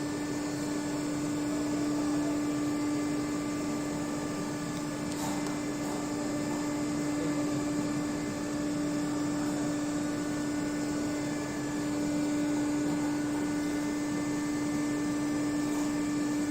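High-frequency welding machine with its hydraulic station running: a steady electrical-mechanical hum with one strong constant tone over a noise haze, and a faint click about five seconds in.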